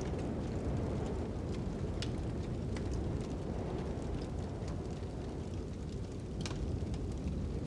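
Fire crackling over a steady rushing wind: a low, even rumble with scattered sharp pops, a louder pop about six and a half seconds in.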